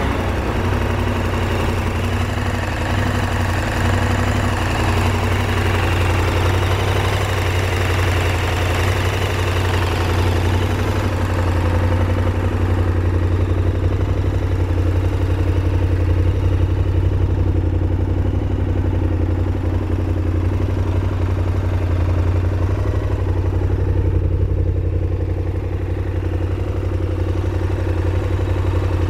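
KTM 1190 Adventure's LC8 V-twin engine idling steadily, with no revs, its sound growing duller from about halfway through.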